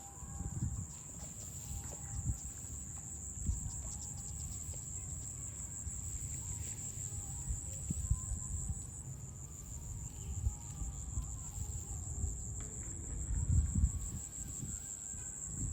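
Steady, high-pitched buzzing of an insect chorus, over a low, uneven rumble with a few soft knocks.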